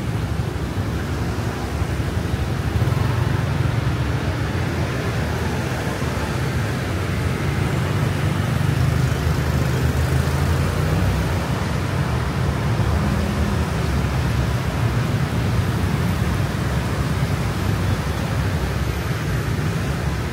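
Steady city street traffic noise: a continuous mix of vehicle engines and tyres with a strong low rumble.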